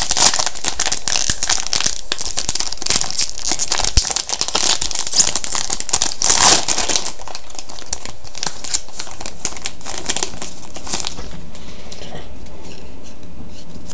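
Trading card pack wrapper being torn open and crumpled, a dense crinkling and tearing that stops about three seconds before the end.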